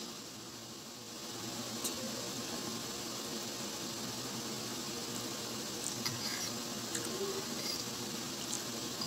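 A fork clicking faintly against a bowl a few times while noodles are eaten, over a steady background hiss.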